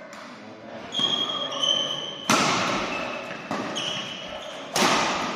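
Badminton rally: two loud racket strikes on the shuttlecock about two and a half seconds apart, each ringing briefly in the hall, with short high squeaks of shoes on the court mat between them.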